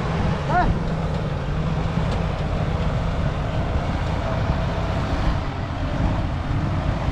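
Mitsubishi L200 pickup's engine running steadily under load as the truck is pulled forward through deep snow on a tow strap. A faint steady whine joins about two seconds in.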